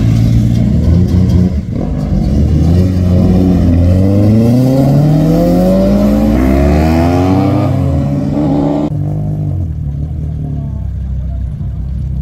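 Toyota Carina sedan's engine revving hard as the car pulls away, its pitch climbing steadily for several seconds. About nine seconds in, the sound cuts off abruptly to a steadier, quieter engine sound.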